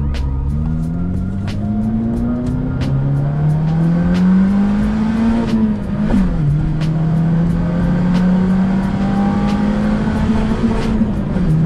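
Honda VTEC car engine under acceleration, its pitch climbing steadily for about five seconds. The pitch drops sharply at a gear change about six seconds in, and the engine then holds a steady note. Faint regular clicks run alongside.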